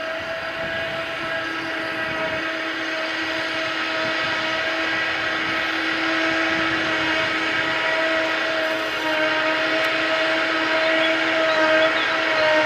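Heavy forage-harvesting machinery working under load: engines and drives running steadily with a constant whine, gradually growing louder.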